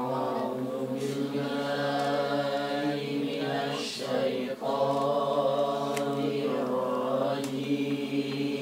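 A man's voice chanting Qur'anic recitation in melodic tilawah style, drawing the vowels out into long held, ornamented notes. Two long phrases, with a short break for breath a little over four seconds in.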